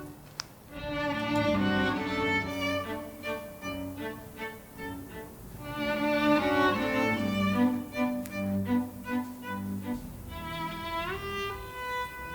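Background music led by a violin playing a melody over a string accompaniment, with a brief click about half a second in.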